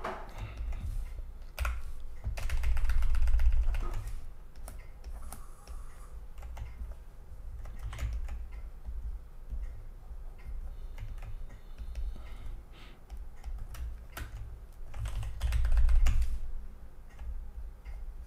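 Computer keyboard clicking: scattered keystrokes, with two runs of quick repeated presses about two seconds in and again near the end.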